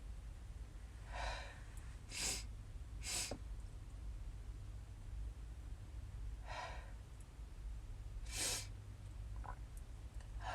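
A person breathing in short, noisy bursts and sighs, about seven of them spread unevenly over several seconds, with a sneeze coming on or just past.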